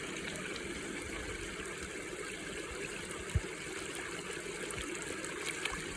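Small spring-fed mountain stream running and trickling steadily. There is a brief low thump a little past halfway.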